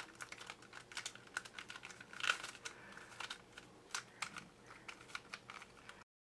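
Plastic Square-2 twisty puzzle being turned by hand: its layers click and clack in quick, irregular runs, loudest about two seconds in. The sound cuts off abruptly near the end.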